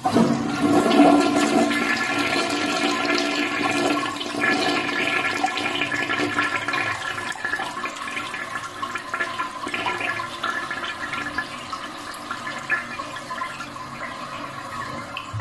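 Toilet flushing: water rushes out suddenly and loudly, then slowly tapers off, still running at the end.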